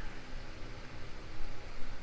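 Steady hiss with a faint low hum underneath; no distinct sound stands out.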